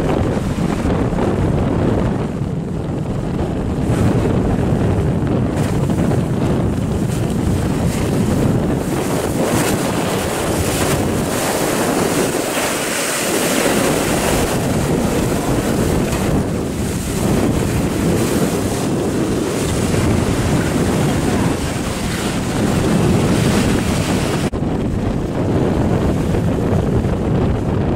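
Wind buffeting the microphone over choppy sea and breaking waves, a steady low rumbling rush. The sound shifts abruptly about two seconds in and again near the end.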